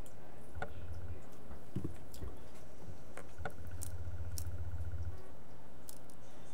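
Scattered light clicks and taps as an iPhone 6 display's flex cables are fitted to the logic board connectors, with two spells of low hum.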